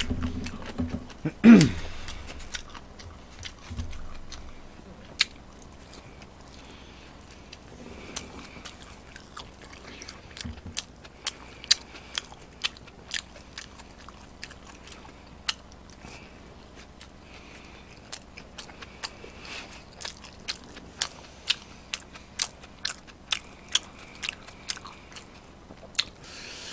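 Close-miked chewing and biting of sweet potato pizza, a quick run of short crunchy clicks that goes on throughout. There is one louder sound about a second and a half in.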